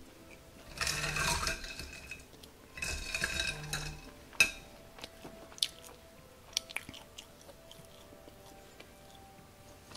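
Biting and chewing a crispy Korean fried chicken drumstick close to the microphone: two crunchy bursts in the first four seconds, then quieter chewing with scattered small clicks.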